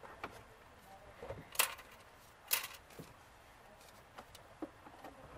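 Handling clatter of a mandrel-bent aluminum cold-air intake tube being worked into place by hand in a truck's engine bay: scattered light knocks and rubs, with two louder clatters about one and a half and two and a half seconds in.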